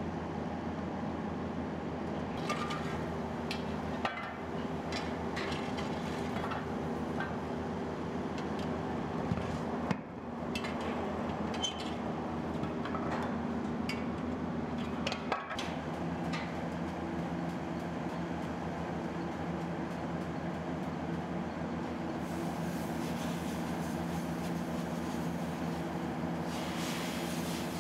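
Steady low mechanical drone of foundry machinery, with scattered clinks and knocks of metal tools through the first half.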